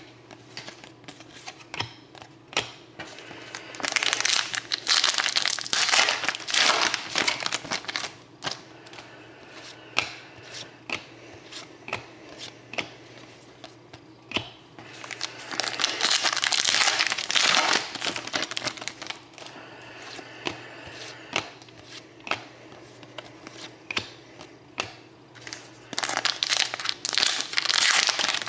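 Trading-card pack wrappers crinkling as packs are torn open and handled, in three louder bouts, with short clicks and taps of cards being handled between them.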